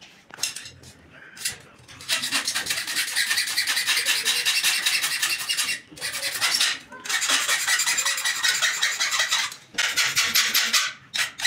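A hand file rasps back and forth along the handle of a steel cooking spoon in rapid strokes. The filing starts about two seconds in and stops briefly twice. A few short knocks come before it.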